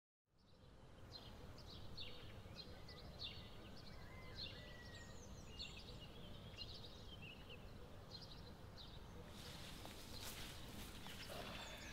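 Faint outdoor ambience with small birds chirping on and off over a steady background hiss, and rustling and brushing noises from about nine seconds in.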